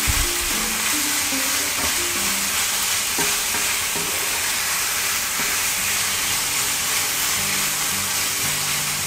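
Codfish, bell peppers and onions sizzling steadily in a nonstick frying pan over high heat, stirred with a wooden spatula.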